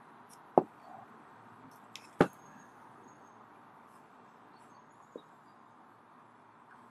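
Sharp taps and clicks from handling a smartphone: two loud ones within the first few seconds and a fainter one about five seconds in, over a faint steady hiss.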